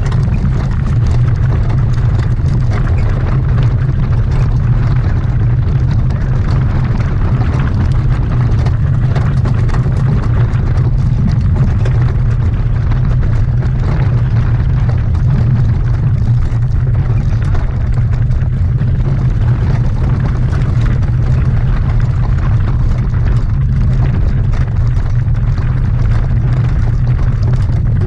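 Heavy wind buffeting on a microphone carried at racing speed: a loud, steady low rumble with no break.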